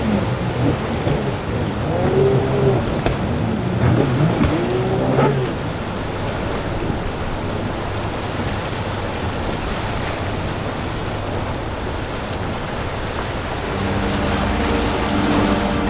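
Motorboat engines running over rough water, with a constant rush of water and wind. The engine pitch rises and falls a few times in the first five seconds, and a steady engine drone comes in near the end.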